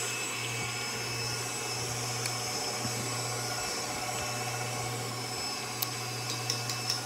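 Electric mixer motor running steadily, beating cake batter. A few light clicks near the end.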